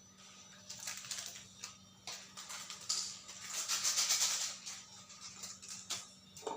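Cooking sounds: scattered clicks and taps of kitchen utensils, with a hissing swell lasting about a second and a half in the middle.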